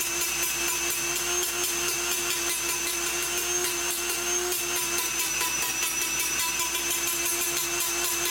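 Handheld high-speed rotary tool with a thin cut-off disc running steadily while grinding off the rivets of a sheet-metal case: a steady whine over a gritty high scraping hiss.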